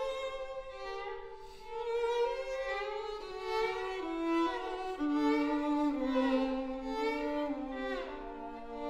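Two violins playing a duet, two lines of held bowed notes. The lower part steps down in pitch through the middle, and there is a downward slide near the end.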